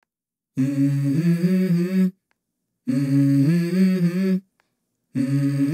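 Background music intro: a wordless hummed vocal melody in three short phrases of about a second and a half each, with brief silences between them.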